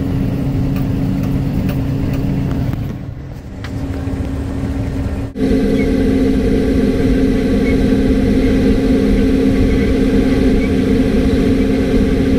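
RoGator self-propelled crop sprayer's diesel engine running steadily at working speed. About five seconds in the sound cuts to a louder, closer take of the same steady engine drone.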